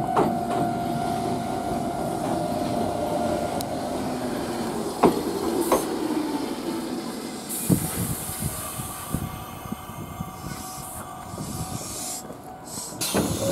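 Konan Railway 7000-series stainless-steel electric train pulling in and braking to a stop, with a steady squeal for the first few seconds and a few sharp clicks from the wheels. A hiss of air about halfway through marks the train coming to rest.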